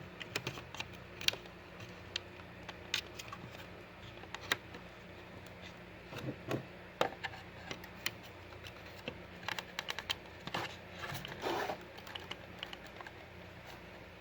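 A battery-operated cuckoo clock being handled: irregular light clicks and taps, with a short scraping sound about eleven seconds in, over a steady low hum.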